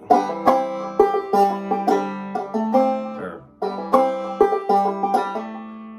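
Gold Tone five-string banjo in gDGBD (open G) tuning played clawhammer style: a short melodic phrase of picked and ringing notes, played twice through.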